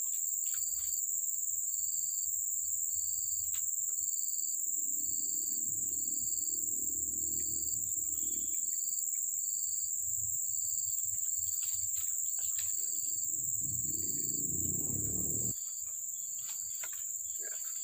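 Steady, high-pitched chorus of insects, with a second insect chirping in a regular pulse about three times every two seconds through most of it.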